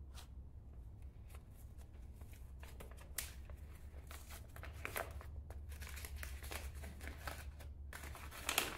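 Paper seed packet rustling and crinkling as it is handled and pinched open, in short irregular bursts, the loudest near the end.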